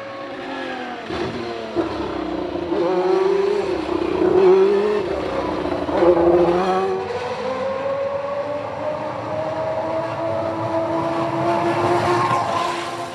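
Ferrari Formula 1 car engine at high revs, its pitch dipping and wavering in the first half, then climbing slowly and steadily from about seven seconds in.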